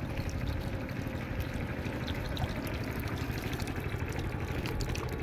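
Shallow water rushing and pouring along a net barrier, with many small fish flipping and splashing at the surface.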